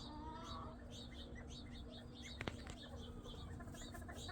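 Birds chirping softly: short high chirps repeating about three times a second. A brief wavering call comes near the start, and a single sharp click about halfway through.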